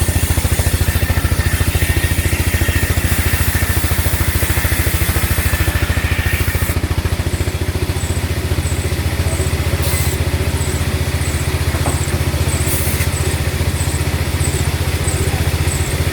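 An engine running steadily at idle, with a faint high chirp repeating a little more than once a second from about halfway through.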